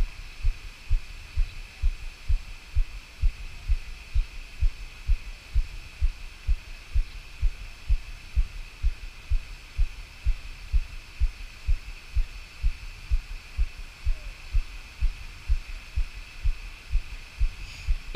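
An even rhythm of short low thumps, about two and a half a second, over a faint steady high hum.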